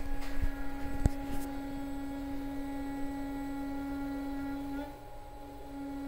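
Steady, pitched electrical moaning from an energized, idle servo motor on a DIY CNC machine, which the builder takes to be the servo up top. Two short clicks come in the first second, and the moan breaks off about five seconds in and returns shortly after.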